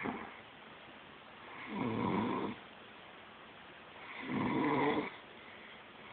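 Slow, regular snoring: two full snores about two and a half seconds apart, with a third starting near the end.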